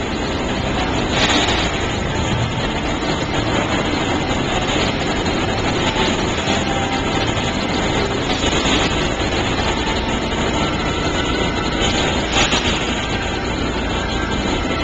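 Steady mechanical running noise as the aluminium panel of a vertical lift flood barrier is hoisted up its frame, with brief louder rattles about a second in and again near the end.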